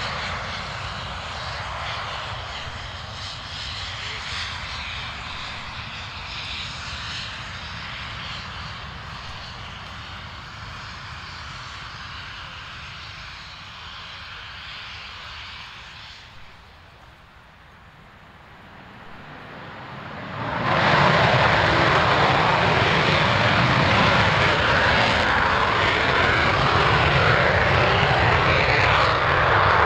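English Electric Lightning jet, its two Rolls-Royce Avon turbojets running as it taxis and growing fainter as it moves away. About twenty seconds in the engines go suddenly to full power in reheat, loud and steady, as it begins a fast run down the runway.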